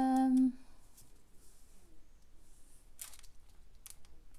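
A held hum in a woman's voice that stops about half a second in, then quiet handling of small plastic bags of diamond-painting drills, with brief crinkles about three and four seconds in.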